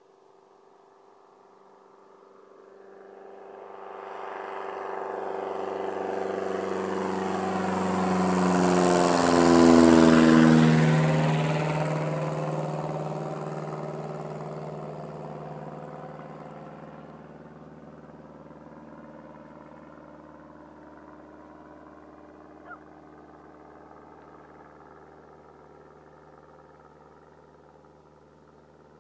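Cessna 170B light plane with a 180 hp engine making a low pass: the engine and propeller drone builds over several seconds, is loudest about ten seconds in as it goes by, drops in pitch, then fades away into the distance.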